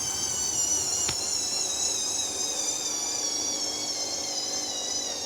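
Hoover washing machine's motor whining through a spin with bedding in the drum. The whine wavers and slowly falls in pitch as the drum slows, with a faint click about a second in.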